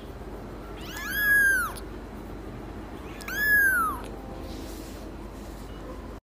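Young kitten mewing twice, about two seconds apart: thin, high mews, each rising and then falling in pitch.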